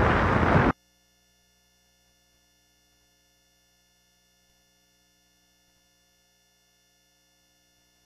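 Wind rushing over the microphone, cut off abruptly less than a second in. Then near silence with only a faint steady hum.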